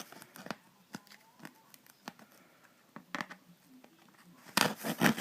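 A package being handled and opened: scattered light clicks and rustles of packaging, then a louder stretch of tearing and crinkling near the end.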